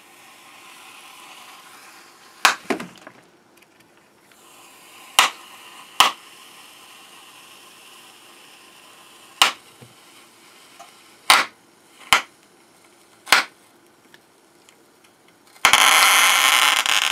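A cheap counterfeit mains charger, powered up and submerged in salt water, giving sharp electrical cracks and pops every one to three seconds over a faint fizzing hiss. Near the end it breaks into a loud, continuous crackle for about two seconds.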